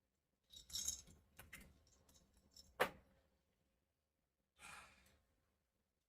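A person's breathy sigh-like sounds, one just after the start and another near five seconds in, with a few faint clicks and one sharp knock near three seconds in, like a glass set down.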